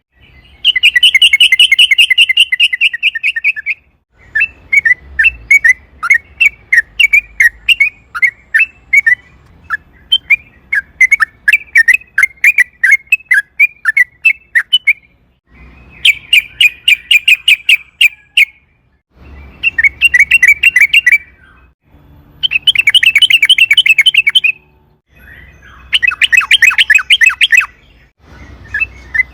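Yellow-vented bulbul singing: loud, rapid bubbling runs of notes in phrases of two to three seconds with brief pauses between them, and two longer stretches of slower, separate chirping notes.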